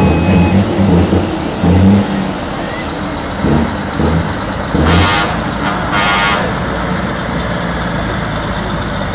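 DAF XF truck's diesel engine running as the truck creeps forward, the rumble coming in uneven pulses for the first two seconds. About five and six seconds in there are two short hisses of compressed air from the air brakes.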